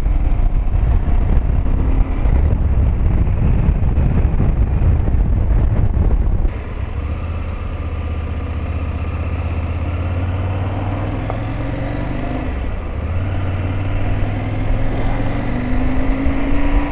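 KTM 790 Adventure's 799cc LC8c parallel-twin engine running on the move. A loud rushing noise over it for the first six seconds or so cuts off suddenly. The engine's steady low note then comes through, rising in pitch near the end.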